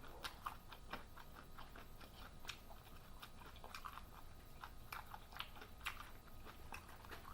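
A person chewing a mouthful of taco, with faint, irregular chewing clicks throughout.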